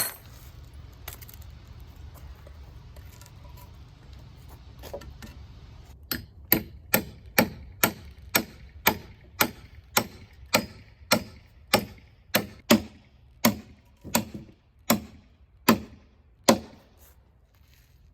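Hammer blows on wood, about twenty steady strikes at roughly two a second, starting about six seconds in. Before that there are only a low rumble and a few faint knocks.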